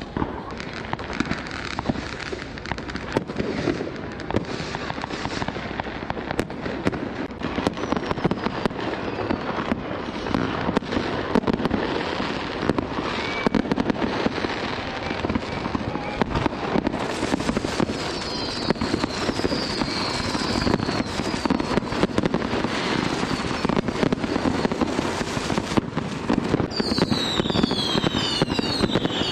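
Many fireworks going off at once on New Year's Eve: a continuous, dense crackle of bangs and pops. From about two-thirds of the way in, whistling fireworks add falling whistles, which grow thick near the end.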